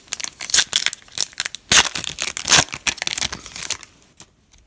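Wrapper of a 2017 Optic football trading card pack being ripped open and crinkled by hand: a dense run of rips and crackles that stops about four seconds in as the cards come out.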